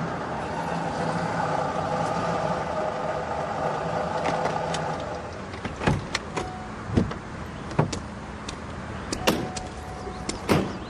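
A Cadillac Escalade SUV rolls in on brick paving and comes to a stop. Then come several sharp knocks and thuds about a second apart: the car's doors opening and shutting.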